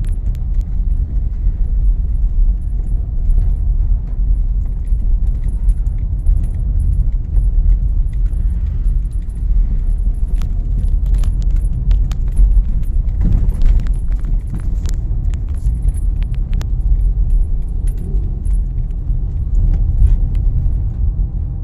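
A car driving, heard from inside the cabin: a steady low rumble from the road and engine, with frequent short sharp clicks and rattles scattered throughout.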